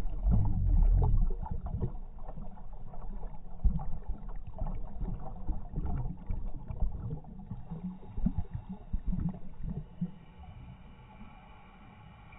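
Underwater sound heard at a diver's camera: a loud, low rush of scuba exhaust bubbles for about the first second, then irregular small clicks and crackles that grow fainter toward the end.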